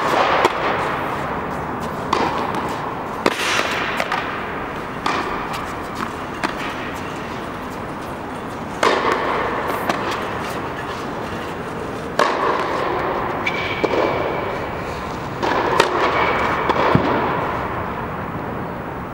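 Tennis balls struck by rackets and bouncing on a hard indoor court, sharp pops about a second to a few seconds apart. Each pop echoes under the fabric dome, over a steady background hiss.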